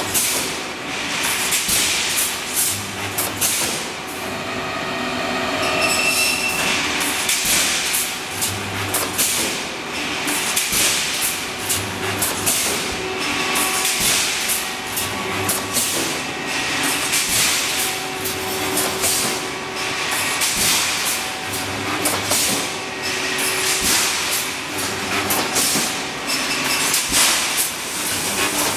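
Pneumatic wire mesh welding machine working through its cycle, welding ribbed steel rebar into mesh: repeated metallic clanks in a steady rhythm as the welding heads press down and release, with a low electrical hum that comes and goes every few seconds.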